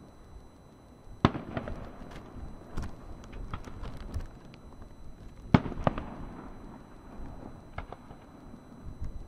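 Aerial fireworks shells bursting in a display. Loud bangs come about a second in and again just past the middle, with scattered smaller cracks and a low rumble between them.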